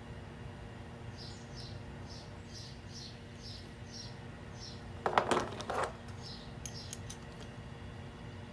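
Small brass gas fittings clinking and clattering against each other for about a second, about five seconds in. A faint high chirp repeats about three times a second in the background.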